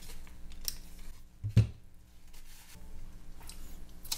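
Handling noises on a workbench as a cordless soldering iron is laid down and a paper instruction leaflet is handled: light clicks and rustling, with one dull knock about one and a half seconds in.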